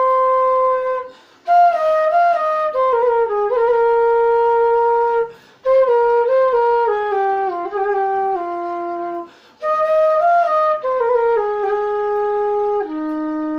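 G-sharp bansuri (bamboo transverse flute) played for a tuning check: four short phrases of notes stepping downward, each ending on a held note, with brief pauses for breath between them.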